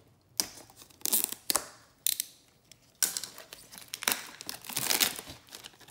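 Clear plastic shrink-wrap on a trading-card box being cut and torn off: a few sharp rips in the first two seconds, then a denser run of crinkling as the wrap is peeled away.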